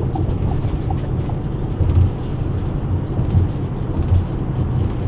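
Steady low road and engine rumble of a truck driving at highway speed, heard from inside the cab.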